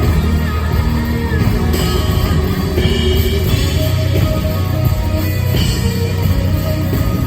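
Live, amplified country-rock band music with guitars, played loud and steady.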